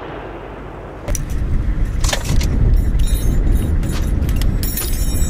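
Metallic clinking and jangling from an M2 Browning .50-calibre heavy machine gun being handled between bursts, with no firing. A low rumble comes in about a second in.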